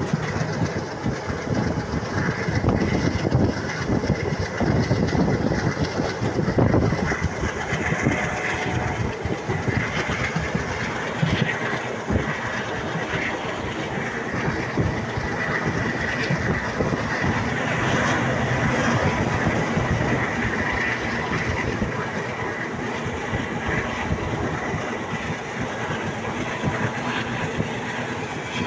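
Passenger train running at speed, heard from a coach: a steady rumble with wheels clattering over the rail joints.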